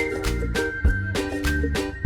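Background music: a cheerful tune with a whistled melody over a steady drum beat.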